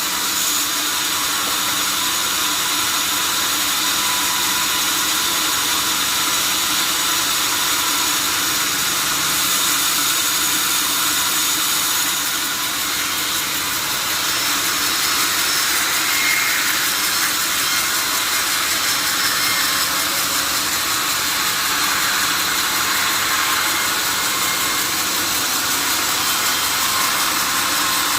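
Sawmill saw running steadily: a loud, even machine noise, mostly high-pitched, with a few faint steady tones in it.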